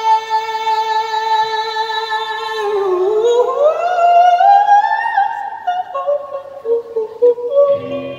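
A singer's live voice holds a long high note, then slides upward in pitch and steps through a few shorter notes. The full band comes back in with a chord near the end.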